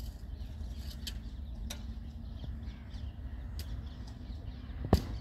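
Outdoor ambience: a steady low rumble with faint short bird calls, and one sharp knock near the end.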